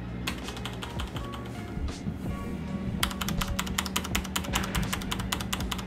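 Typing on a Ducky Zero mechanical keyboard with Cherry MX Brown switches, a steady patter of keystroke clicks. There is a brief lull about two seconds in, then a fast, dense run of keystrokes from about halfway through.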